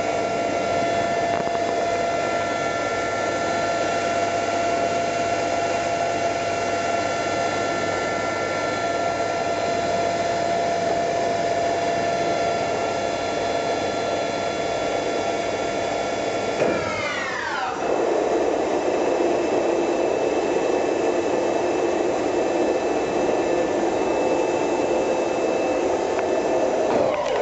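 Mori Seiki MV-1003B vertical machining center's spindle running with a steady high whine, then spinning down about two-thirds of the way through, its pitch falling quickly over about a second. A broader, steady machine whir carries on afterwards.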